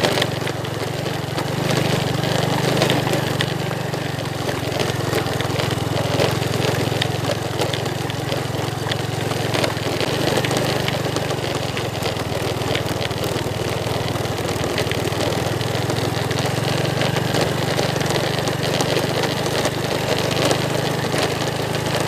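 Motorcycle engine running steadily at low speed on a rough stony dirt track, with scattered knocks and rattles as the bike jolts over the stones.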